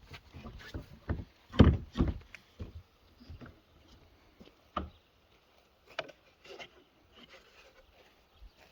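Plastic shed panels being handled and fitted: irregular knocks and bumps, the loudest pair about one and a half to two seconds in, then scattered lighter knocks.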